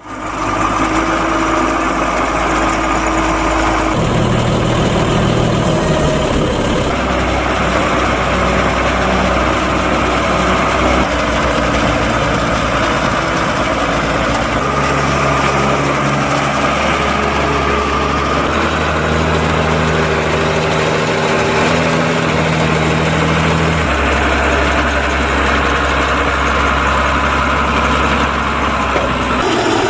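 Heavy diesel tractor engines running steadily, with the engine note changing abruptly several times.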